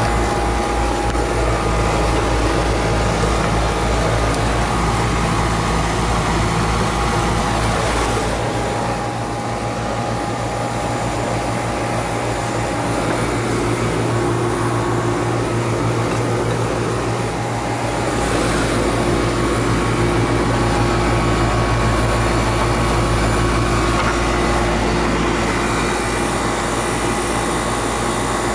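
Heating equipment running with a steady mechanical hum and several steady tones, its sound shifting slightly about a third of the way in and again past the middle; no bang is heard.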